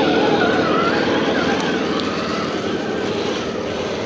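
Radio-controlled off-road car running, its electric motor and gears making a whine whose pitch rises and falls with the throttle.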